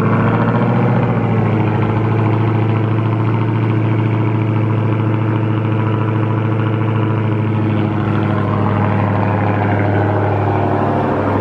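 Vehicle engine idling steadily on a cold start.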